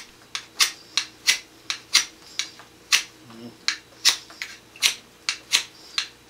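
A homemade carbon-steel knife blade scraped repeatedly along a ferrocerium rod in quick, sharp rasping strokes, about two to three a second, striking sparks.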